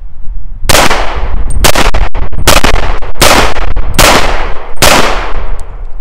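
Six pistol shots from a Llama Max-1 1911-style .38 Super firing Remington 130 grain full metal jacket rounds, each a sharp crack with a short echo, about one shot every 0.8 seconds. Firing stops after the sixth shot because the pistol jams: the same failure to feed it had before the gunsmith's repair, with the bullet wedging on the feed ramp.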